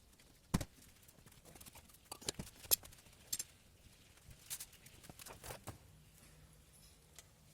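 Scattered sharp metallic clicks and taps, about half a dozen, from tools and brake hardware as the rear drum brake shoes' springs and hold-down retainers are worked off. The loudest click comes about half a second in.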